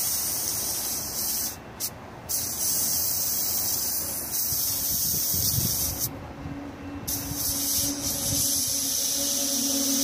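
Air hissing out of a motorcycle tire valve in three long bursts with short breaks, as an over-inflated tire at 41 psi is let down toward 36 psi.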